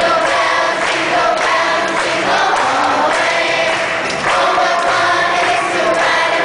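Elementary school children's choir singing, with a short breath between phrases about four seconds in.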